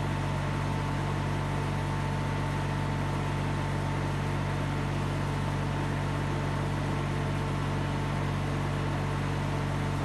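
Steady, unchanging hum of a honey bee swarm buzzing inside a wooden hive box. Its being heard is a good sign that the swarm has settled in the box.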